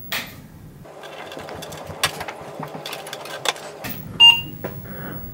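Switch clicks, then about four seconds in a short, high electronic beep: the Apple II Plus's power-on beep from its built-in speaker as the computer boots.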